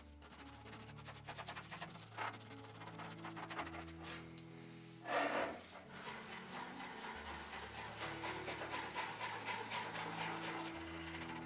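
Rapid rubbing strokes of abrasive work on a small part of the model car, over background music with sustained low notes; a louder rasp about five seconds in.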